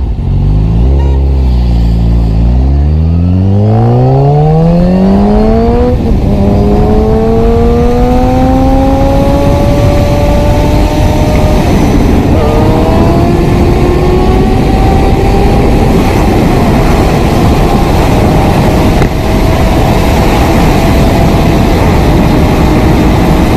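Sport motorcycle engine accelerating hard through the gears. The revs climb in long rising pulls, with upshifts about six and twelve seconds in, then a slower steady climb at high speed.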